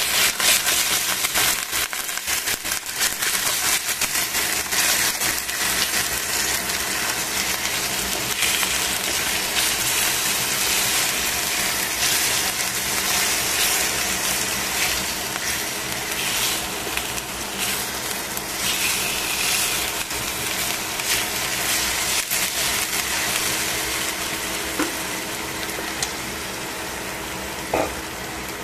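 Chicken wing pieces sizzling and crackling as they fry in a stainless steel pan, with the tongs that turn them tapping and scraping against the pan. The crackle is thickest in the first few seconds and the sizzle eases a little toward the end.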